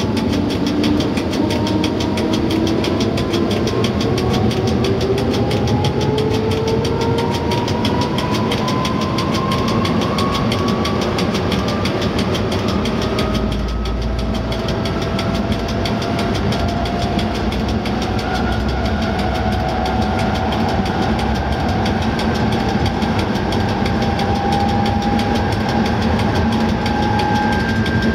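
EP09 electric locomotive accelerating under power toward 160 km/h, heard inside the cab. The traction motors and gearing whine in several tones that climb slowly in pitch as speed builds, over a steady running rumble, with a brief dip about halfway.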